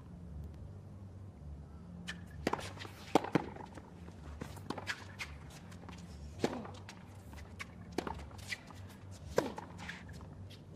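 A tennis ball bounced on a hard court by a player getting ready to serve: several sharp knocks at uneven intervals over a steady low arena hum.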